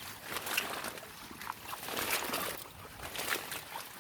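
Water sloshing and splashing in uneven strokes, as when something is moved through shallow river water by hand.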